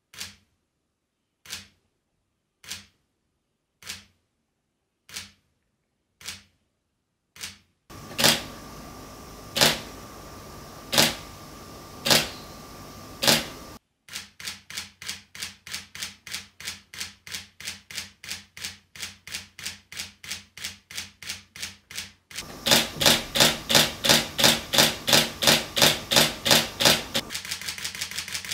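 Sony a7 III mirrorless camera's mechanical shutter firing single shots about a second apart, then a louder Nikon D7500 DSLR mirror-and-shutter clack, single shots over a faint hum. The a7 III then fires in low-speed continuous mode at about three frames a second, and the D7500 fires a louder burst at about the same rate. Near the end the a7 III switches to mid-speed continuous, clicking faster.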